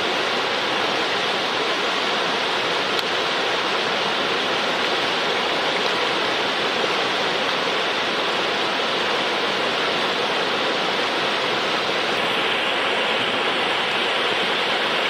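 River water running fast and steady, an even rushing noise of current over rocks.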